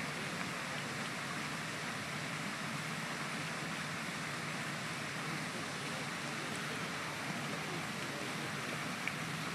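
Steady, even outdoor background hiss with no distinct event in it.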